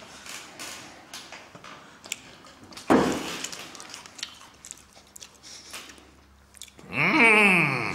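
A person chewing a chocolate sweet, with many small mouth clicks. A short louder noisy burst comes about three seconds in, and a loud pitched sound glides downward near the end.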